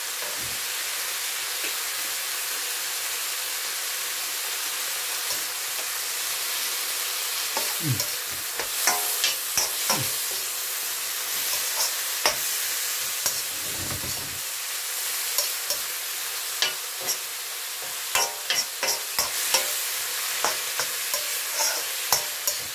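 Stir-fried vegetables sizzling steadily in a wok, with a spatula scraping and clicking against the pan as they are tossed. The clicks come in clusters from about a third of the way in.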